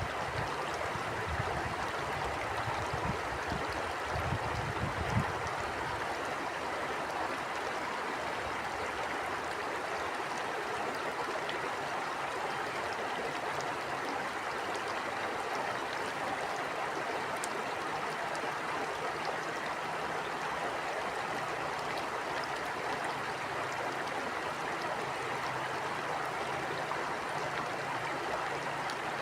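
Stream water flowing steadily, with wind gusting on the microphone as a low rumble for the first five seconds or so.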